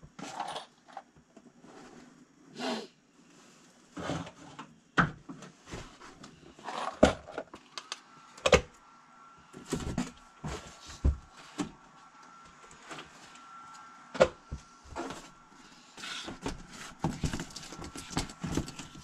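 Irregular knocks, taps and clatter of hard objects being handled and set down in a small room, with a faint steady high tone through the second half.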